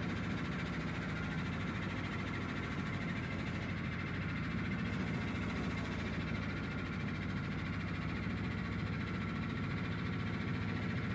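Tour boat's engine running steadily as the boat cruises along the stream, a constant low drone.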